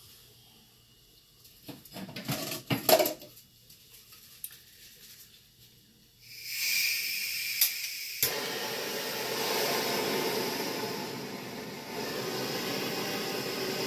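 A few knocks of handling about two to three seconds in. From about six seconds a handheld torch hisses steadily; a click about two seconds later is followed by a fuller, steady flame rush. The torch is being passed over wet acrylic pour paint to pop bubbles and bring out cells.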